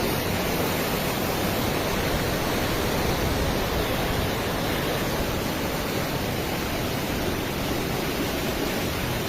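Steady rushing of floodwater, an even noise with no breaks.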